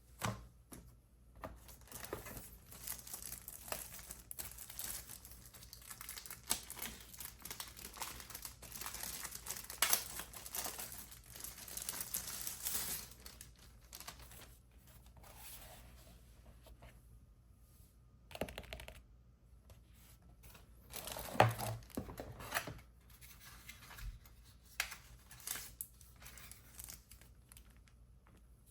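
Keyboard packaging being unwrapped and handled: irregular crinkling and tearing of wrapping, busiest in the first half. A few sharper handling noises follow, the loudest a little past two-thirds of the way through.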